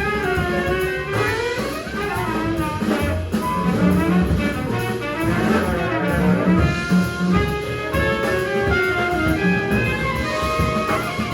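Live small-group jazz: trumpet and saxophone playing interweaving lines over a walking bass and drums.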